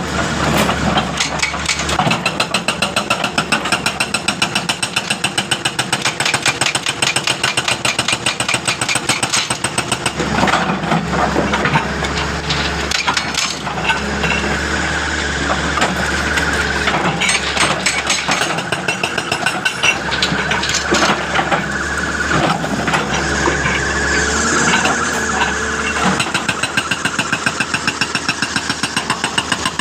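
Hydraulic breaker on a Hitachi excavator hammering rock in rapid, even blows over the running engine, easing off briefly about a third of the way in and again near the middle.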